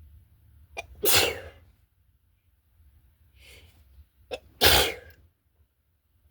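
Two loud human sneezes about three and a half seconds apart, each starting with a short sharp catch of breath; a softer breath between them. Sneezing with a head cold.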